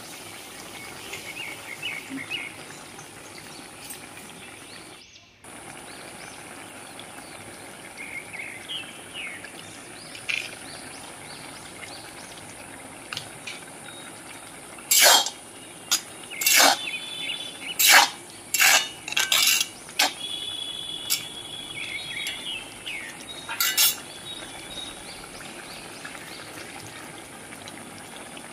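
Vegetable curry simmering in a wok with a steady bubbling hiss. About halfway through comes a run of about seven sharp metallic clinks of a cooking utensil against the pan or a dish, spread over roughly ten seconds.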